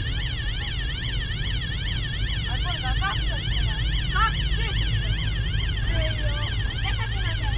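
A siren sweeping rapidly up and down without a break, heard from inside a moving minibus over its steady low engine and road rumble. Children's voices chatter briefly now and then.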